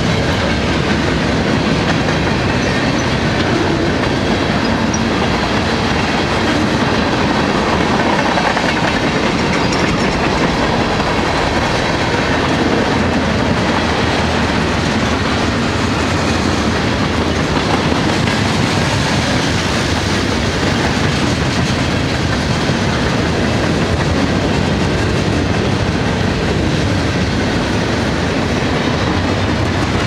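A mixed freight train's boxcars, tank cars and covered hoppers rolling past: a steady, loud rolling noise of steel wheels on the rails.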